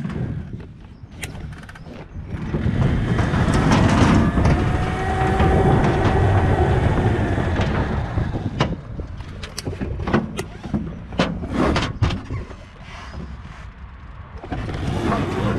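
Electric dirtbike climbing a steep ramp: a loud stretch of motor whine and tyre rumble, the whine rising and then falling. This is followed by a run of sharp knocks and clatters as the bike reaches the top, and then it goes quieter.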